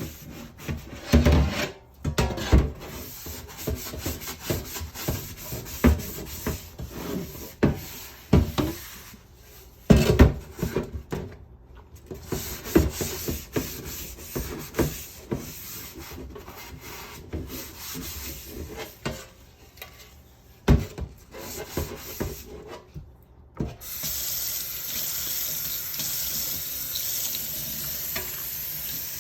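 Hand scrubbing of a metal air cleaner lid with dish soap: irregular rubbing strokes with occasional knocks of the metal. Near the end it cuts to a steady stream of water from a tap.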